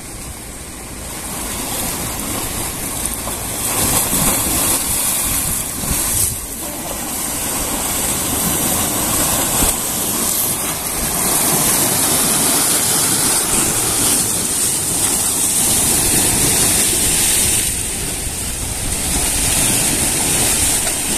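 Choppy, wind-driven lake waves sloshing and splashing against a rocky shore, with wind gusting over the microphone.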